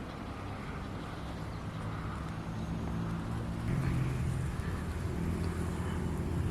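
Low engine hum growing steadily louder.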